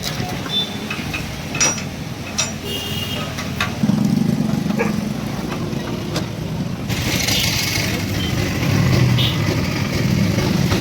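An engine running steadily at low revs, growing louder about four seconds in, with scattered clicks and knocks; a steady hiss joins about seven seconds in.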